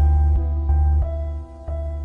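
Background music: held synth-like chords over a heavy bass, changing every second or so.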